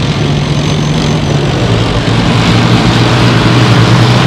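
K2 main battle tanks driving past close by on dirt, their diesel engines running with a loud, steady low drone that grows slightly louder.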